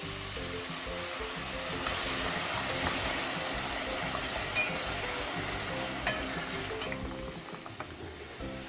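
Loud sizzling from a hot pot of sautéed orzo pasta, onion, carrot and tomatoes as water or stock goes in, dying down after about seven seconds. Background music plays underneath.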